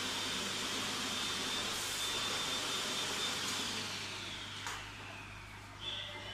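Vacuum cleaner running with a steady whine. About four seconds in it is switched off, and its motor whine falls in pitch as it spins down, with a click just after.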